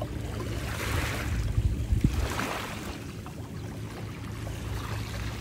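Small sea waves lapping and washing over a pebble shore, the wash swelling twice, about a second in and again around two seconds, over a steady low rumble, with a single sharp click near the loudest moment.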